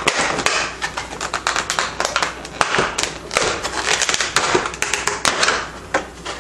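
Clear plastic packaging crinkling and crackling in a dense run of quick clicks as a vinyl statue is worked out of it by hand.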